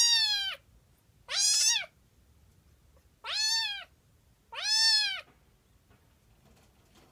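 Two-month-old Exotic Shorthair kitten meowing: four high-pitched meows about a second and a half apart, each rising then falling in pitch, the first already under way at the start.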